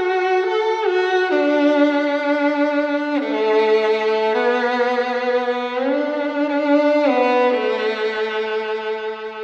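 Slow violin music: long held notes that glide from one pitch to the next about every second or two.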